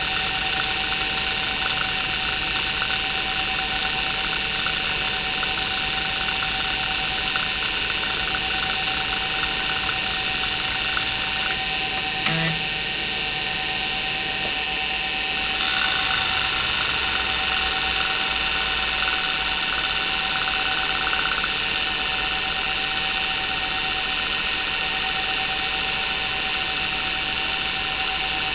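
Maxtor 8051A 41 MB 3.5-inch IDE hard drive seeking rapidly and continuously, its head actuator chattering over a steady whine from the spinning platters, whose bearings are poor on this unit. About twelve seconds in, the seeking stops for a few seconds, with one click, leaving the drive just spinning. Then it starts seeking again, louder, as a seek-time test sweeps the heads across the tracks.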